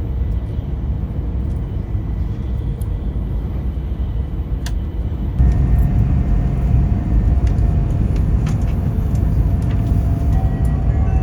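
Tohoku Shinkansen train running at speed, heard inside the passenger cabin as a steady low rumble. The rumble grows louder about five seconds in. A short tune starts near the end.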